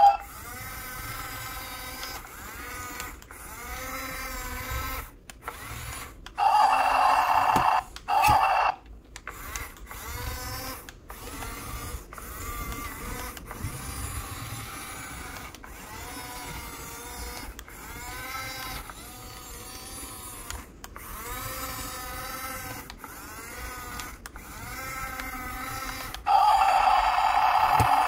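Battery-powered remote-control toys running: small electric motors and plastic gears whirring, their pitch rising and falling. Twice a louder electronic tone sounds over them, about six seconds in and again near the end.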